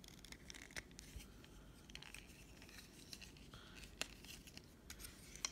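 Faint handling of a plastic Transformers Dinobot figure: light scraping and scattered small clicks of its joints and parts, with a few sharper clicks, the loudest about four seconds in.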